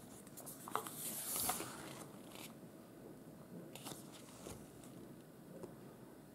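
Pages of a thick photo book being turned by hand: faint paper rustling and soft ticks, with a louder brushing swish of a page about a second in.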